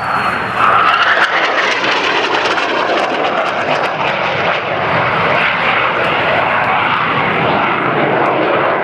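Jet roar of a low-flying F-5 fighter's twin turbojets during an aerobatic display pass. It swells sharply within the first second, then holds loud and steady.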